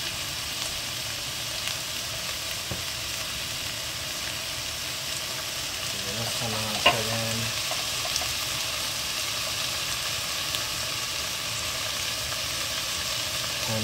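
Food frying in a sauté pan, a steady sizzle, with one sharp click about seven seconds in.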